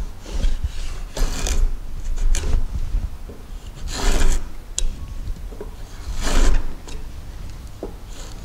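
Plow plane with a 3 mm blade cutting a groove along the edge of a board: several short rasping strokes of the blade shaving wood, about two seconds apart.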